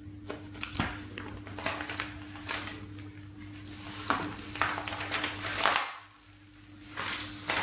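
Clear self-adhesive book-covering film being handled as its backing sheet is peeled away: a series of short rustles and crinkles over a steady low hum.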